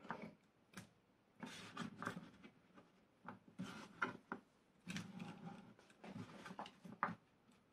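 Faint, scattered clicks and soft knocks of raw potato chips being picked up off a wooden chopping board and dropped into a small wire-mesh deep-fryer basket.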